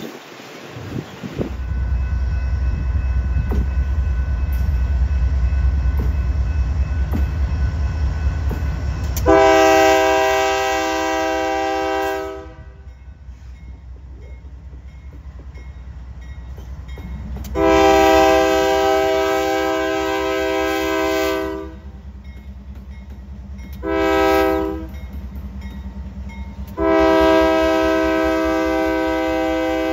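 Union Pacific diesel locomotive's air horn sounding the grade-crossing signal: two long blasts, a short one, then a final long blast still sounding at the end. A heavy low rumble of passing train fills the first nine seconds or so, and a low engine drone runs under the later blasts.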